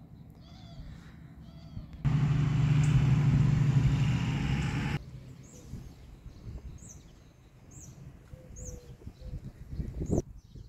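Songbirds chirping in a garden, with repeated short, high notes that sweep downward about once or twice a second. About two seconds in, a loud, steady low hum with a rushing noise over it starts suddenly and cuts off just as suddenly about three seconds later. There is a sharp knock near the end.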